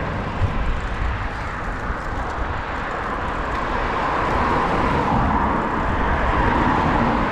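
Road traffic passing on the main road alongside: a steady rush of car tyre and engine noise, swelling slightly in the second half.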